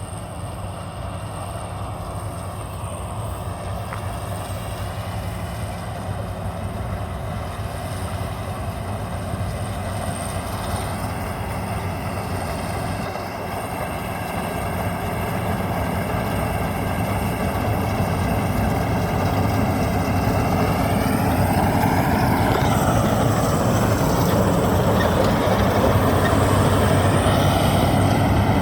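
Maxxi Bimo rice combine harvester running, its engine and machinery drone growing steadily louder. Its pitch dips and recovers about two-thirds of the way through.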